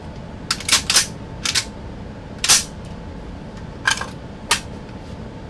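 Sharp metallic clicks and clacks of a SIG 510 (Stgw 57) rifle being handled and cleared after firing, about seven separate clicks spaced irregularly.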